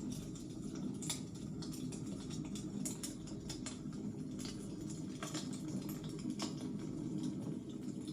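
Wood fire crackling in a fireplace: irregular sharp snaps and pops over a steady low rush of the flames.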